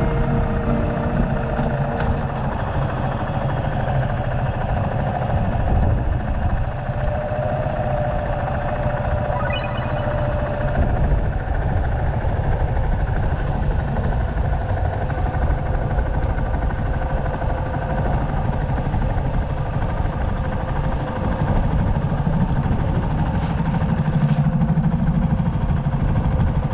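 Suzuki GrassTracker BigBoy's air-cooled single-cylinder engine running steadily while the motorcycle is ridden, a dense, steady rumble.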